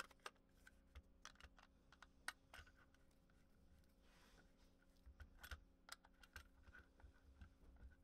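Faint, irregular small clicks and taps of a screwdriver turning the retention screws on a Kydex handcuff carrier, with the hard plastic shell knocking in the hands. The clicks come thicker in the second half.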